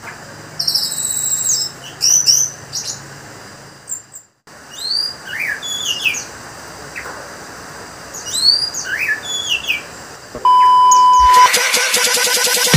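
Orange-headed thrush singing in quick, varied whistled phrases, its high notes sweeping up and down. Near the end a steady beep of about a second is followed by loud electronic music.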